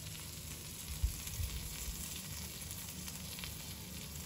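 Omelette frying in a pan: a steady sizzle with faint crackles, and a soft low bump about a second in.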